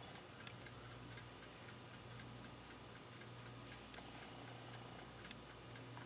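Near silence: faint room tone with a low steady hum and faint, regular ticking.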